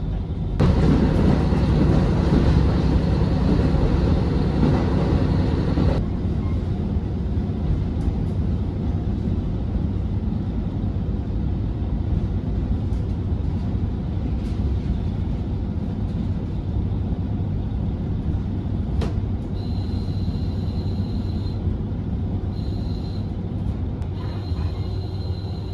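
Train running on the track, heard from inside the passenger car: a steady rumble and running noise, louder for the first few seconds and easing off about six seconds in. Near the end a high thin squeal comes and goes three times over the rumble.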